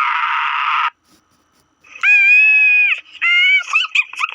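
Loud, high-pitched screaming cries. A harsh, rasping one cuts off about a second in. After a pause comes a long, steady, piercing cry lasting about a second, then shorter broken cries near the end.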